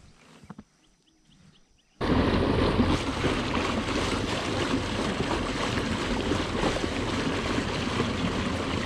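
Water rushing and splashing along the sides of a fast-moving fishing kayak's hull, with wind buffeting the microphone. It starts suddenly about two seconds in, after a quiet moment.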